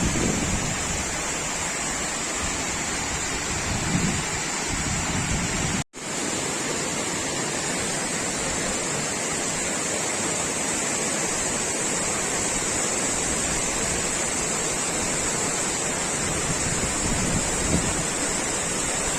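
Steady rushing roar of a waterfall's falling water, broken by a momentary dropout about six seconds in.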